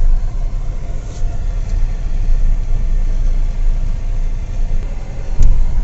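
Steady low rumble heard inside the cabin of a Hyundai Creta 1.6 four-cylinder turbo-diesel automatic on the move: engine and road noise. A single thump comes near the end.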